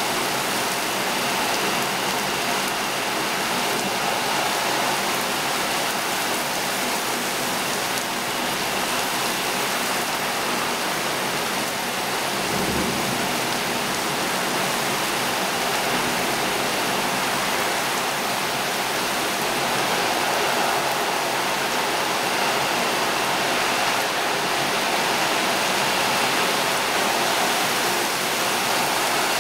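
Heavy rain falling steadily, a downpour.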